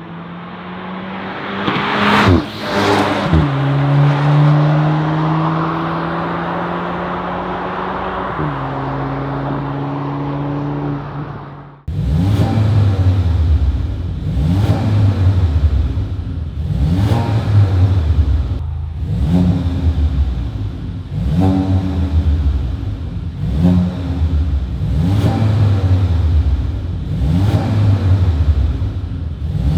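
VW Golf 8 GTI's turbocharged 2.0-litre four-cylinder on a cat-back valvetronic exhaust drives past, its pitch dropping as it passes, then pulls away with an upshift. About twelve seconds in the sound cuts to the same engine on a catless turbo-back valvetronic exhaust, blipped to rev and fall back roughly every two seconds, about eight times.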